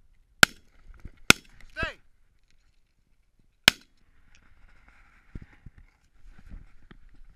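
Three shotgun shots at flying geese: two about a second apart, then a third a little over two seconds later.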